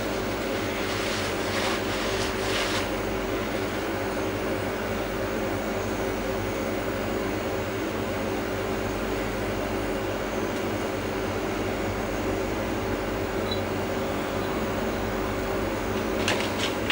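Steady mechanical hum with a few fixed tones, like a fan or similar machine running. Light clicks and taps of a metal tool on the cylinder head come about a second in and again near the end.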